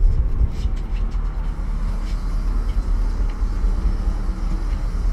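Steady low rumble aboard an offshore sport-fishing boat, with a few faint knocks.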